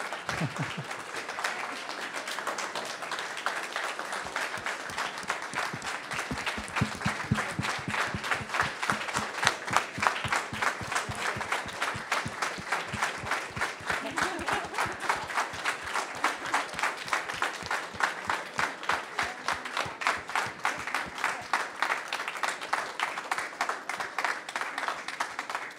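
A roomful of people applauding, the clapping settling into a steady rhythm partway through.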